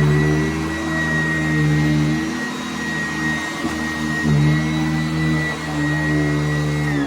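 Sanitaire S675 commercial upright vacuum cleaner running with a steady high motor whine over a lower hum that wavers midway. It is switched off at the very end, and its whine starts to fall as the motor winds down.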